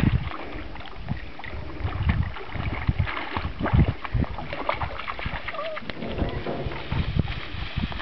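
Wind rumbling unevenly on the microphone over water lapping at a lake's edge, with a few small knocks.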